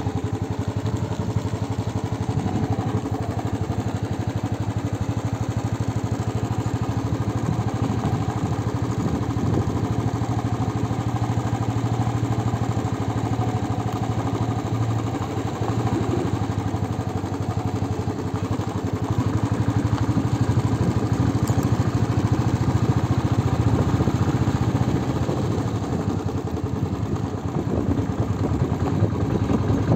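A vehicle's engine running steadily with road noise, a steady low hum throughout that gets a little louder about twenty seconds in.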